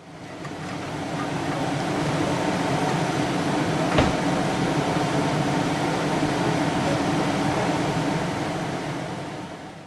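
15-inch gauge miniature railway train running, a steady rumble and rattle with one sharp click about four seconds in. It fades in at the start and out at the end.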